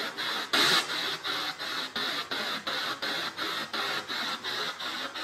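P-SB7 spirit box radio scanning rapidly through FM stations: choppy bursts of static about five times a second, with one louder snatch of radio noise about half a second in.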